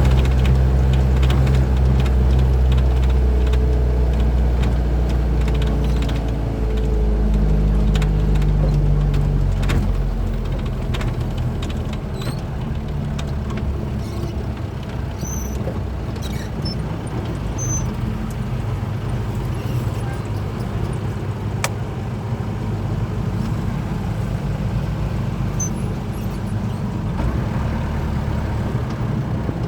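Truck engine running on the road with steady road noise. The engine note changes pitch between about six and ten seconds in, then settles into a steadier, lower rumble.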